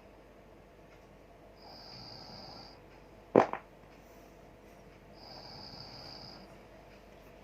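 A man snoring in his sleep with his mouth open: two long snores about three and a half seconds apart, each with a high hiss. A brief, sharp, loud noise comes a little over three seconds in, between the snores.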